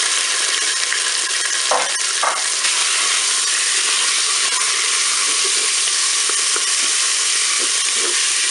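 Raw chicken pieces sizzling steadily in hot oil in the preheated bowl of a Cookeo multicooker on browning mode, with a couple of brief knocks about two seconds in as more pieces go in.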